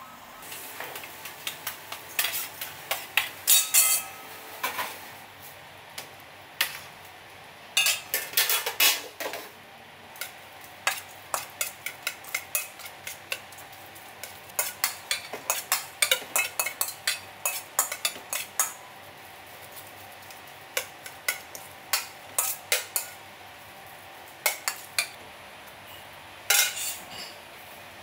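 Chopped seafood being mixed in a stainless steel bowl: repeated sharp clinks and scrapes against the metal, coming in irregular clusters.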